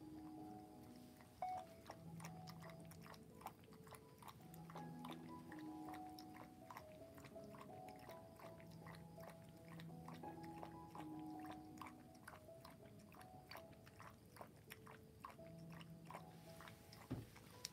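Dog eating from a bowl, with quick clicking chewing sounds starting about a second and a half in, over faint soft music of slow held notes.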